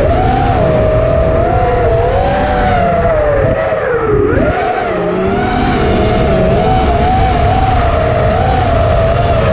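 Racing drone's motors whining, the pitch wavering up and down with the throttle. It drops sharply about four seconds in, then climbs back.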